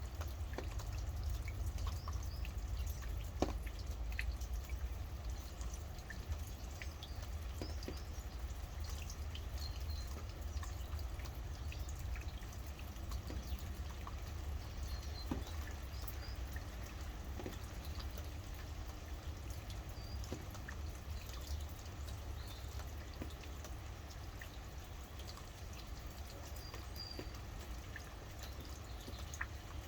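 Rain dripping: scattered drops falling irregularly, with a few faint short bird chirps over a steady low rumble.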